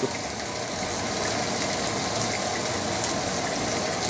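Pork sizzling on a hot electric grill plate, a steady hiss.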